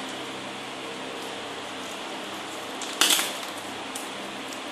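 Hands handling a laptop's LCD panel and display lid: one short rustling scrape about three seconds in and a fainter one near the end, over a steady background hum.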